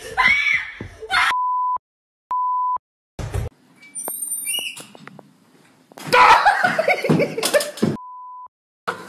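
Startled shouting and yelling cut by three short censor bleeps, each a steady high beep tone. In the first second comes a shout followed by two bleeps; about three seconds in comes a sharp thump; near the end a man lets out a loud yell that falls in pitch as he is startled, cut off by the third bleep.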